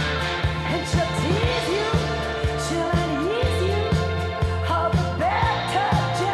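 A song plays with a steady beat of about two drum hits a second, a deep bass and a sliding sung melody.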